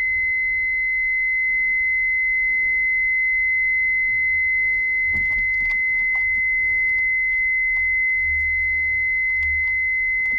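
A steady, high-pitched electronic tone at one pitch, unbroken, with faint small clicks and taps from plastic parts being handled.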